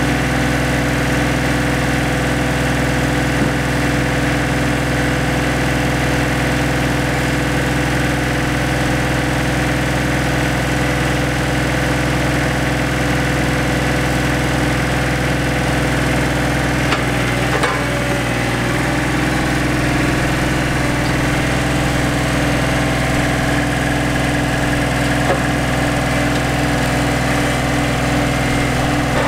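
An engine idling steadily at an unchanging pitch, with a single knock a little past halfway through.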